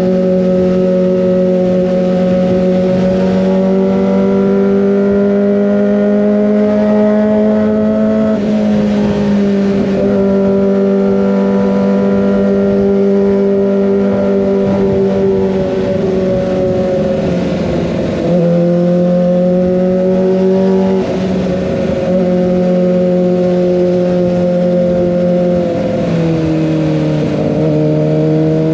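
Kawasaki ZX25R's 250 cc inline-four running through an Over Racing GP-RS full-system exhaust under way. It holds fairly steady high revs, and the pitch dips and steps down briefly a few times: about a third of the way in, around the middle, and near the end.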